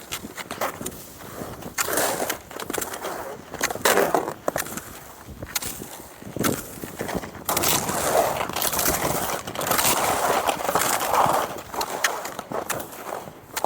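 Cross-country skis scraping and swishing over snow, swelling in a rough rhythm about every two seconds, with scattered sharp clicks and crunches.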